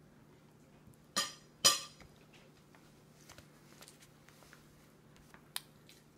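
Two sharp knocks on a plastic high-chair tray, about half a second apart, then a single lighter click near the end, with faint small ticks of a baby's hands on the tray between them.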